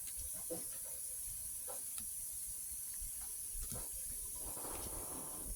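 Faint handling of trading cards from a freshly opened booster pack: scattered soft clicks and a brief rustle of cards sliding past each other near the end, over a steady background hiss.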